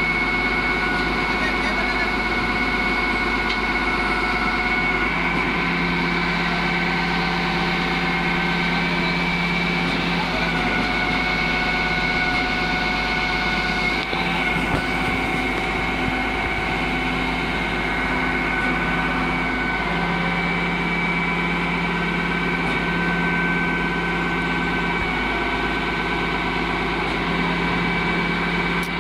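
KATO truck crane's engine running steadily as its boom is lowered, with a steady high whine over the engine sound.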